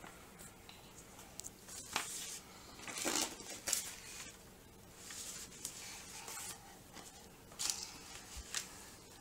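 Paper rustling and crinkling in short, irregular bursts as cut-out paper pieces are handled and pressed onto a sheet by hand, with a few light clicks.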